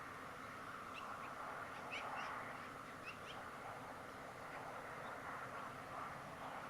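A bird giving a few short, high chirping call notes, in small clusters in the first half, over a faint steady outdoor hiss.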